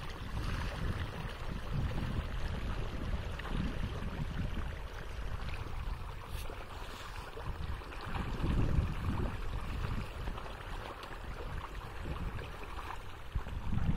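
Pond water splashing and churning as a dense shoal of pangas catfish and tilapia feed at the surface. Uneven low gusts of wind buffet the microphone.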